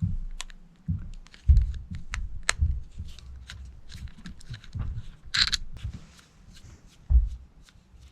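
Hand work on a disassembled two-stroke carburetor: scattered light clicks and taps of small parts and tools, a short scrape about five seconds in, and several dull low thumps.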